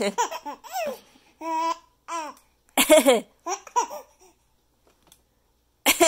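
A four-month-old baby laughing at fake coughing, in several short bouts of giggles and squeals. After a pause of over a second, a loud new bout starts just before the end.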